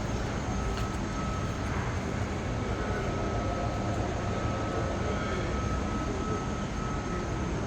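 Steady outdoor city rumble with a thin, steady high tone running through it; no single event stands out.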